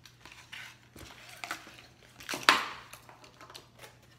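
Plastic and cardboard lure packaging being handled on a wooden table: a run of small clicks and rustles, with one louder, longer burst about two and a half seconds in.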